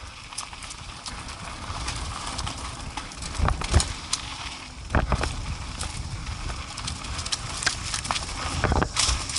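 An ATV jolting over a rough dirt trail: irregular knocks and rattles from the machine and its camera mount, with heavier thumps about three and a half, five and nine seconds in.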